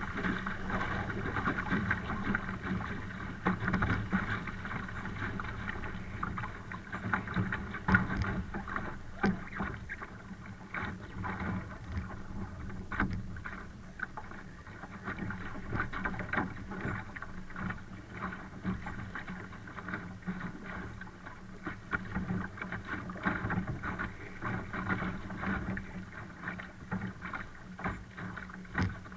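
Laser 1 sailing dinghy under way: water rushing and slapping irregularly against the hull.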